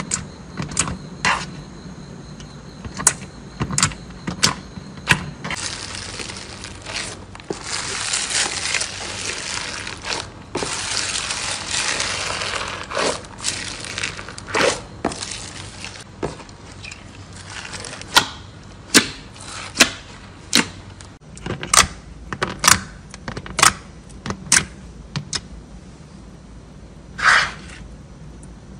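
Hands poking, pressing and squeezing slime, making a string of sharp pops and clicks as air pockets burst. In the middle comes a longer noisy stretch of squishing, from a slime full of foam beads being kneaded.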